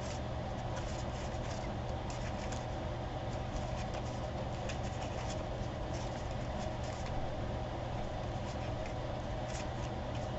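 Faint scattered clicks and light rustles of paper and cardstock being handled, over a steady low hum.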